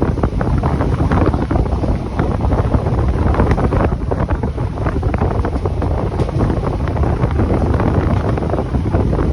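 Wind blowing hard on the microphone over a steady low rumble from the moving train.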